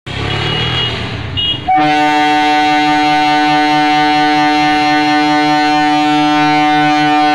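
Indian Railways EMU train rolling slowly with a low rumble, then its horn sounds about two seconds in: one long, steady, loud blast that holds on unbroken.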